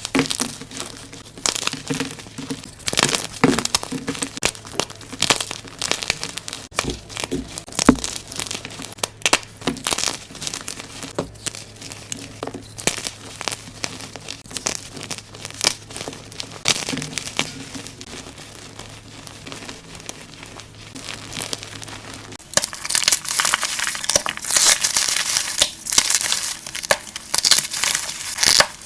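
Blocks of gym chalk being crushed and crumbled, a dense run of irregular crunches and crackles. About three quarters of the way through the crunching becomes thicker and crisper.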